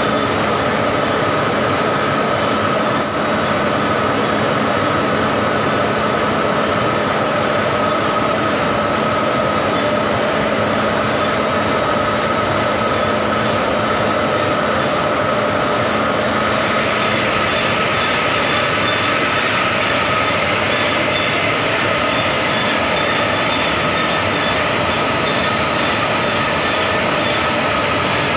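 Rubber-glove dipping line running: the chain conveyor carrying the hand-shaped formers and its drive make a steady, loud mechanical noise with a few constant whining tones. About seventeen seconds in the sound turns brighter and harsher, with a high steady whine added.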